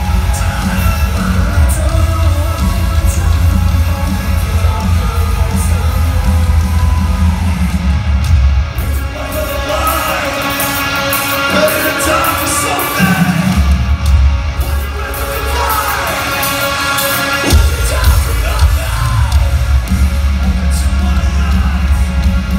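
Metalcore band playing live through a loud arena PA: heavy bass and drums under a sung vocal line. About halfway through, the bass and drums drop out for a few seconds, leaving the vocals and guitars, then come back in.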